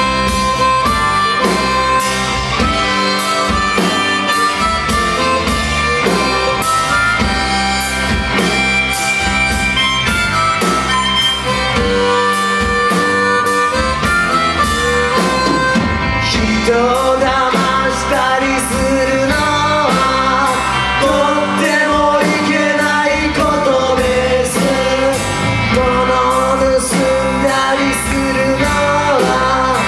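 Live rock band playing: harmonica lead over electric guitars, bass and drums, with a male lead vocal coming in about halfway through.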